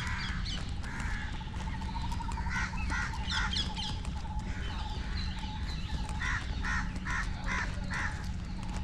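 Crows cawing: a few harsh calls a few seconds in, then a run of about six calls, roughly three a second, near the end, over a steady low background rumble.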